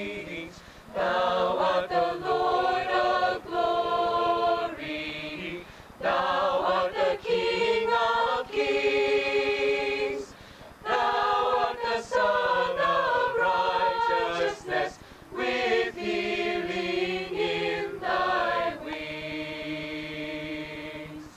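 Mixed choir of men's and women's voices singing unaccompanied in parts, in phrases of sustained chords separated by short breaths, ending on a long held chord.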